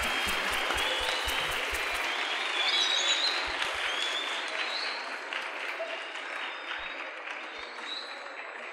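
Audience applauding, dense at first and dying down gradually through the second half.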